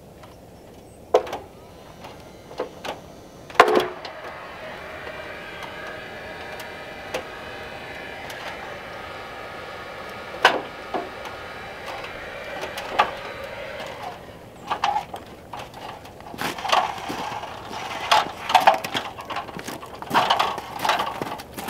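Sharp knocks and bangs on timber, a few spaced apart at first and then in quick runs near the end. A steady machine whine with several held tones runs for about ten seconds in the middle.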